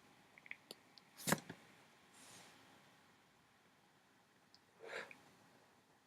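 Quiet vaping at a Tornado RCS e-cigarette kit. Faint clicks and one sharper click about a second in, then soft breathy sounds around two seconds and again near five seconds as vapour is drawn in and breathed out.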